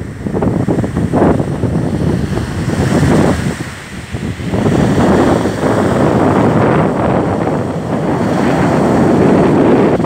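Rough sea surging and breaking in foam below a seafront railing, mixed with gusty wind buffeting the microphone. There is a brief lull about four seconds in.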